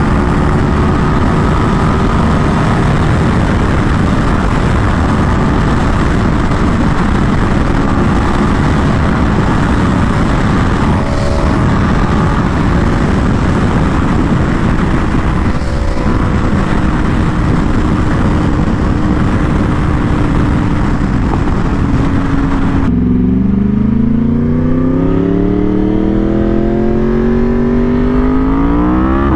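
Yamaha R1 sport bike at highway speed: a steady loud rush of wind over the microphone with the inline-four engine humming underneath. About 23 seconds in, the wind noise drops away and the engine is heard accelerating hard, its pitch climbing steadily and rising faster near the end.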